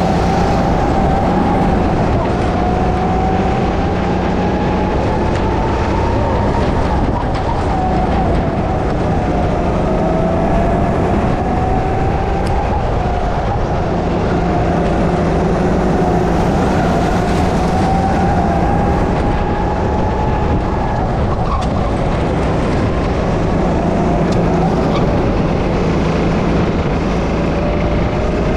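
Onboard sound of a Sodi rental go-kart's engine at racing speed, its pitch climbing slowly as it accelerates and dropping back again several times, over a steady rush of noise.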